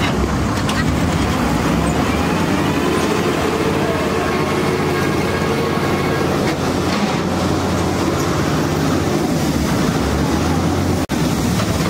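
Channy 930 combine harvester's engine running steadily at idle, a constant low drone. The sound cuts out for an instant near the end.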